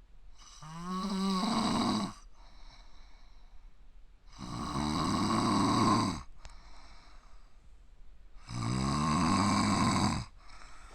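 A man snoring very loudly, a scream-like snore: three long snores about four seconds apart, each lasting up to two seconds, the first rising in pitch as it begins.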